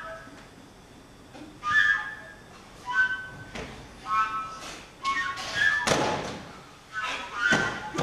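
Short whistled notes in bursts about once a second, with breathy noise around them and a couple of heavy thuds in the second half.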